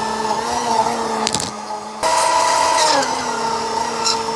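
Hamilton Beach Drink Master drink mixer running, its plastic blade churning a thick milkshake in a metal can as the can is moved around the spindle. The motor hum wavers in pitch with the changing load and dips near the end, with a brief clatter about a second and a half in.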